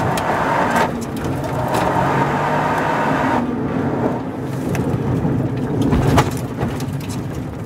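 In-cabin sound of a Toyota GR Yaris rally car's turbocharged three-cylinder engine pulling hard with loud tyre and road noise. About three and a half seconds in, the engine note and noise drop as the car lifts off and brakes for a bend. A sharp knock comes about six seconds in.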